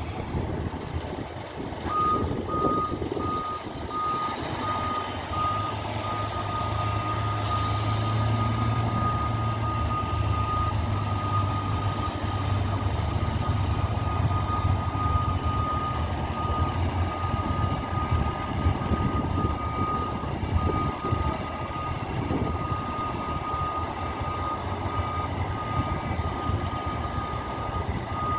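Reversing alarm on a semi-trailer truck beeping at one steady pitch, starting about two seconds in and repeating, over the low running of the truck's diesel engine.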